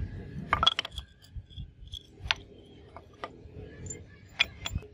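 A few sharp, light clicks and clinks as small metal pieces are handled against short white plastic pipe sections: a quick cluster about half a second in, then single clicks spaced out over the next few seconds.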